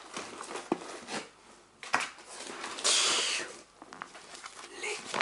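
Pages of a thick paperback book being handled and riffled, with small paper rustles and taps and one loud, fast riffle of pages about three seconds in.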